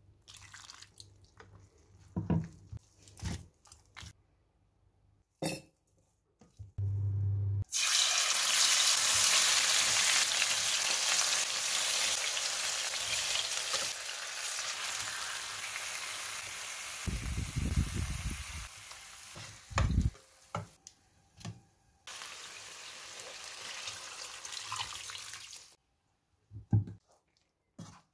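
Food sizzling in hot oil in a pan: it starts suddenly about eight seconds in, stays loud for some fourteen seconds, then goes on more quietly and stops near the end. Short knocks and clicks of kitchen handling come before and between the sizzling.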